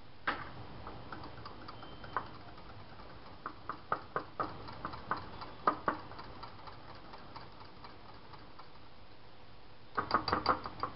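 Irregular clicks and taps of a metal whisk and spoon against a glass mixing bowl as strawberry crush is stirred into whipped cream, with a quick flurry of taps near the end.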